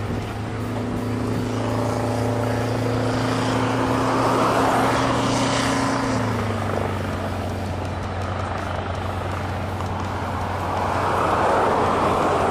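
Airport crash-rescue fire truck's engine running as it drives along the runway: a steady hum that drops a step in pitch about six seconds in, with a rushing noise that swells twice.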